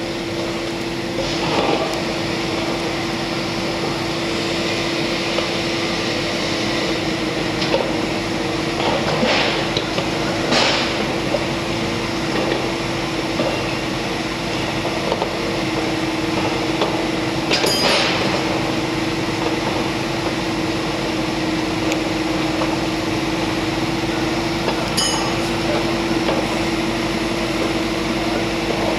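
Heavy construction machine's diesel engine running steadily at one pitch, with a few sharp metal knocks.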